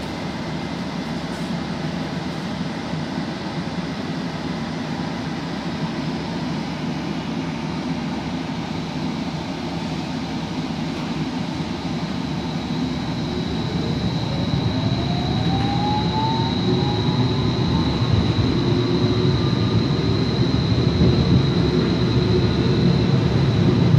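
Portland Streetcar running, heard from inside the car. About halfway through, a motor whine rises in pitch as the car speeds up and the sound grows louder, with a thin, steady high whine through the second half.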